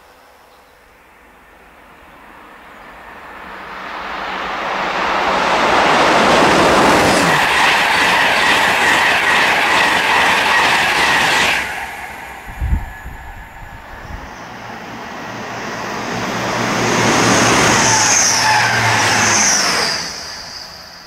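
Express passenger trains passing at speed. The first builds over a few seconds into a loud, steady rush of wheels and air, then cuts off abruptly a little before halfway. A brief low thump follows, and then a second train builds to a rush with high-pitched squealing near its peak before quickly dying away.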